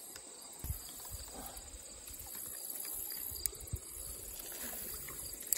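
Steady high-pitched insect drone from the streamside vegetation, with a few faint clicks and knocks.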